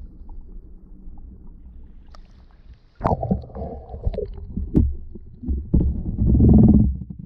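Muffled underwater sound picked up by a GoPro inside its waterproof housing: a low rumble, then from about three seconds in a series of knocks and thuds, with a loud muffled rush of water movement near the end.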